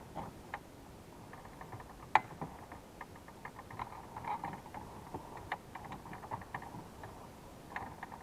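Small plastic clicks, taps and scrapes from fitting the 4x4 switch panel back into a GMC Envoy's dashboard and fastening it, with one sharper click about two seconds in.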